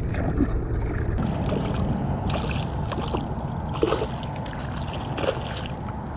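Hooked speckled trout splashing at the surface of shallow water, several splashes about two to six seconds in as it thrashes and jumps on the line, over a steady low rumble.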